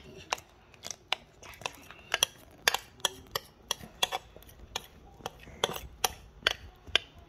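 Short sharp clinks and taps of a utensil against glass bowls, irregular at about two or three a second, as melted chocolate and butter are poured and scraped from a small glass bowl into a large glass mixing bowl.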